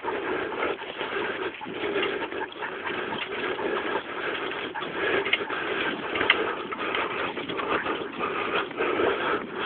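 Huskies panting as they run in harness, pulling a dog scooter, over the rolling rattle of the scooter's wheels on a dirt trail.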